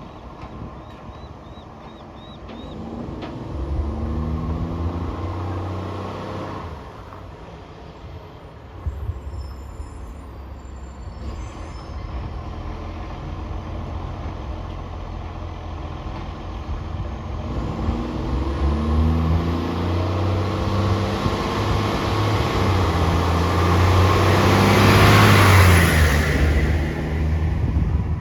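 Diesel bus engine with an exhaust leak, pulling away and accelerating, its pitch rising in steps through the gears twice. It is loudest near the end, with a rush of hiss as it passes, then drops away.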